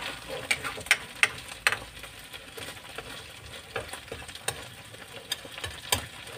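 Sardines frying in hot oil in a pan, a steady sizzle as they crisp, with repeated clinks and scrapes of a metal spatula turning them against the pan.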